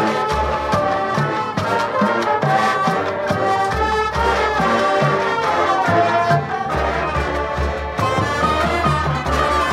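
High school marching band playing at full volume: brass section carrying held chords and melody over low drum hits and front-ensemble percussion.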